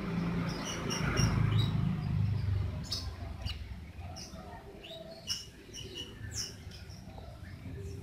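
Baby lovebird chirping in short, high begging calls as it is hand-fed soft food, with a low rumble of handling during the first few seconds.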